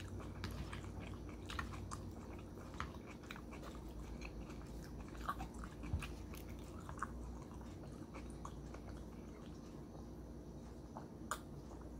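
A person chewing a mouthful of kimchi, rice and shrimp close to the microphone, with scattered soft clicks and mouth sounds over a faint steady low hum.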